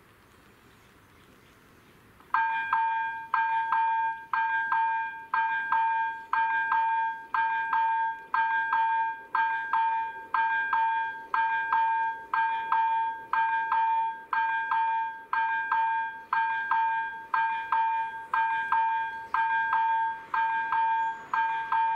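Railway level crossing warning bell starting suddenly about two seconds in and ringing evenly about once a second, each ring dying away before the next: the crossing is activated for an approaching train.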